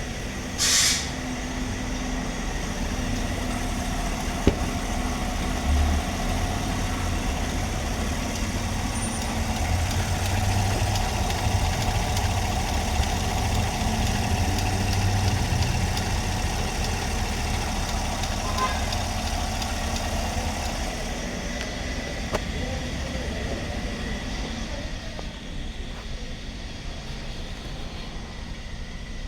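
GMC Sierra V8 with direct injection idling steadily on freshly fitted fuel injectors, with the scan tool reading zero misfires on every cylinder. A brief hiss about a second in.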